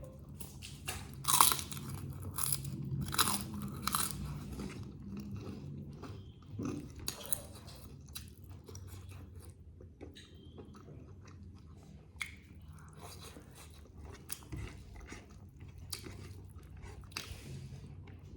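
A person eating a mouthful of chicken curry and rice close to the microphone, with several loud crunchy bites in the first few seconds, then quieter chewing.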